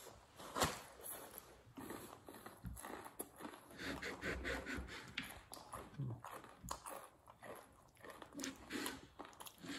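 Close eating sounds of a man biting and chewing crispy fried chicken: scattered crunches, clicks and mouth noises, with a faint murmur or two in the middle.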